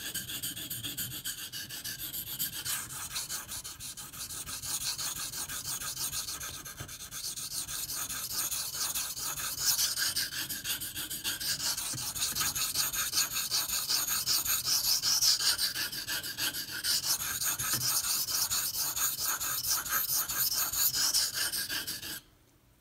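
Steel knife blade (154CM) scraped back and forth on a coarse 500-grit whetstone, a continuous rapid rasping of strokes grinding chips out of the edge. The grinding stops abruptly near the end.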